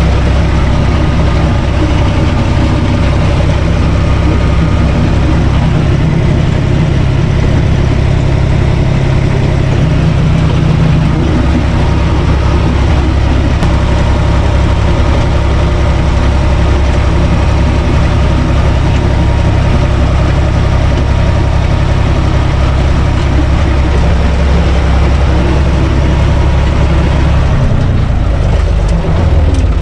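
UTB Universal 445 DT tractor's four-cylinder diesel engine running loud and steady, heard from the driver's seat. Its low drone shifts near the end.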